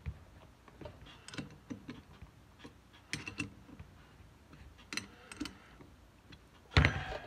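Scattered small metallic clicks of a wrench snugging the bolts on a Caterpillar Sixty oil pump's plate, with one louder knock near the end.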